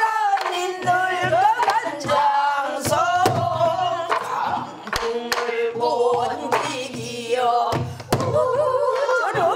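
Woman singing pansori with sliding, wavering pitch, accompanying herself with strokes of a stick on a buk barrel drum; the drum strokes fall irregularly between and under the sung phrases.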